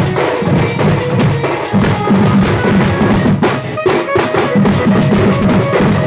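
Sambalpuri folk music: fast, dense drumming with a melody of short held notes above it.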